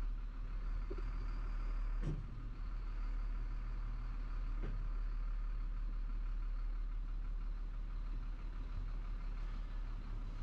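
Chenglong heavy truck's diesel engine running steadily at low revs, heard inside the cab, with a sharp click about two seconds in.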